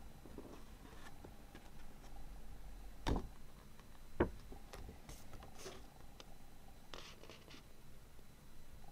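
Faint handling of a large folded paper lyric sheet, with light rustles, two sharp clicks about a second apart near the middle, and a few short crisp rustles later on.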